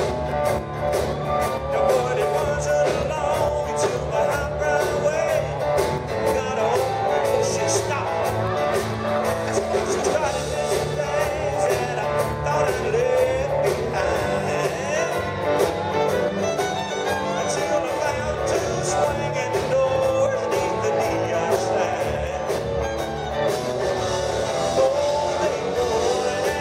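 Live country band playing through a PA, with drums and electric guitars, and a male lead singer singing over them.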